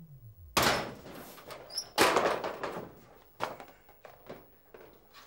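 Sheet-metal locker door being opened: a sudden clank about half a second in, a louder bang about two seconds in, then lighter knocks and rattles as things are handled inside the locker.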